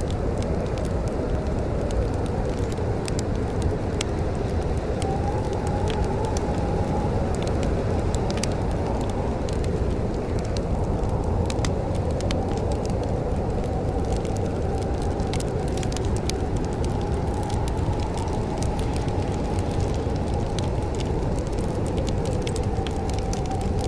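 Wood fire in a fireplace crackling, with frequent small sharp pops over a steady low rumble.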